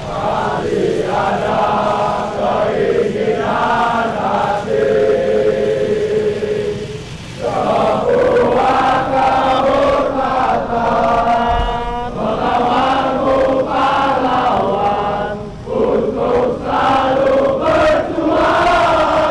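Large crowd of football supporters singing a chant together in unison, in long sung phrases with brief breaks about seven and sixteen seconds in.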